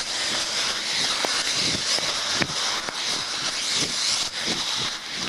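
Heavy rain hissing steadily on a wet street, with dull thuds of running footsteps about every two-thirds of a second.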